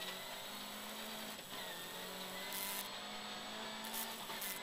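Rally car engine running under load, heard from inside the cabin, as a steady hum that steps up in pitch about a second and a half in, with a few short hisses over it.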